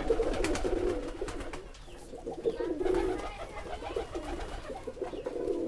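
Several Giribaz domestic pigeons cooing at once, their low, wavering coos overlapping continuously.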